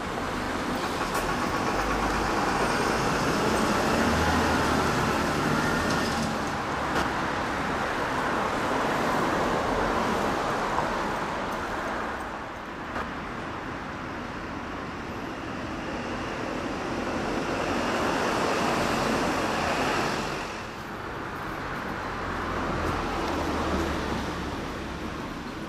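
City road traffic: cars and buses going past on a street, a steady rush of engines and tyres that swells and fades as vehicles pass.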